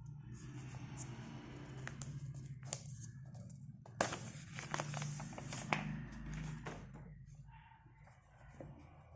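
Plastic packaging crinkling and rustling as a large desk-mat mouse pad is unpacked, with scattered sharp clicks and taps, the loudest about four seconds in.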